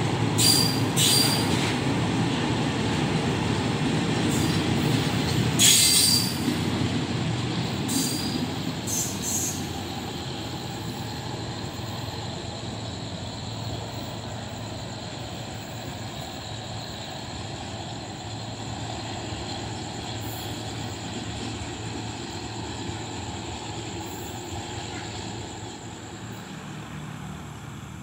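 Freight train of railway tank wagons rolling past close by, a steady rumble of wheels on rail with a few brief high wheel squeals in the first ten seconds. The sound then fades slowly as the last car passes and the train draws away.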